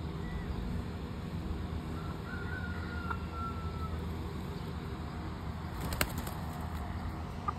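Steady low outdoor rumble with a faint, thin whistle lasting about two seconds that falls slightly in pitch, then a sharp click about six seconds in and a smaller one near the end.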